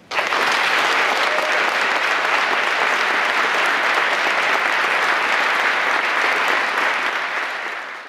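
Audience applauding steadily. It starts suddenly and tapers off slightly near the end.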